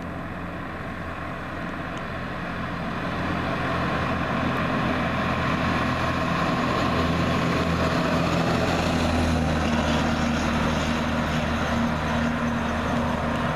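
A fire truck drives past. Its diesel engine hum and road noise swell over the first few seconds, then hold steady.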